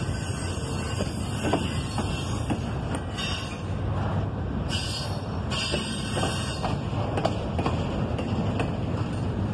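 CSX double-stack intermodal train's container well cars rolling past on the rails: a steady rumble with scattered clicks and knocks from the wheels.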